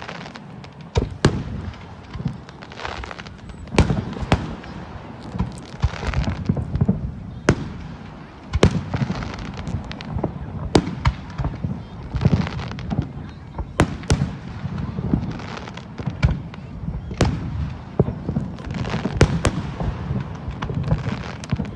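Aerial fireworks shells bursting one after another in a display: sharp bangs at irregular intervals, often less than a second apart, over a continuous low rumble.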